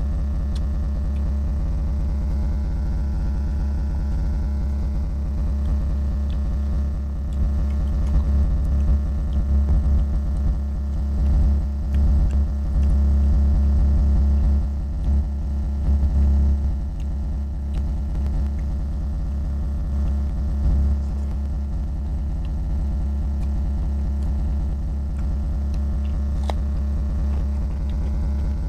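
Steady low electrical hum with a buzzy edge, swelling louder for a while in the middle, over faint chewing and mouth sounds of a man eating pork curry and rice by hand.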